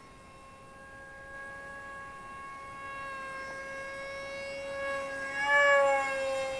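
Brushless electric motor of a Zeta Z84 FPV race wing (2208 2600kv) spinning a 6x3 composite propeller in flight: a steady whine. It grows louder and swells as the wing passes close about five and a half seconds in, the pitch bending slightly as it goes by, then fades.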